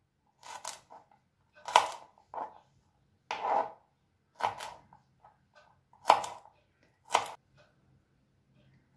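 Kitchen knife chopping adamant creeper (pirandai) stems into small pieces on a plastic cutting board. About eight short, sharp knocks of the blade striking the board come at irregular intervals of roughly a second.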